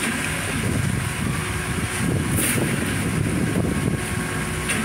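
Steady engine rumble, with a low, uneven churning and no clear pitch.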